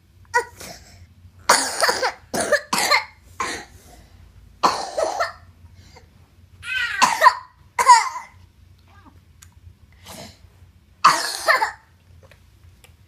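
A person coughing repeatedly: short coughs come in several fits of one to three, with pauses of a second or more between the bouts.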